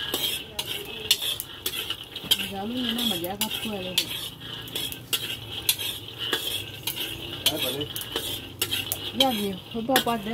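A metal spoon stirring dry red-skinned beans in a steel wok over a wood fire, the beans rattling and the spoon scraping the pan in quick irregular clicks.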